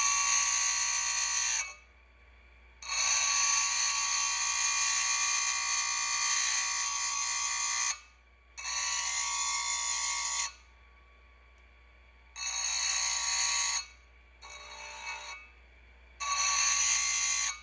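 Dressing stone pressed against the spinning grinding wheel of a Farmertec bench-mounted chain grinder (Oregon 511 clone), a harsh high-pitched screech in six bursts of one to five seconds with short pauses between. The stone is cleaning the gunk off the wheel and squaring up its face.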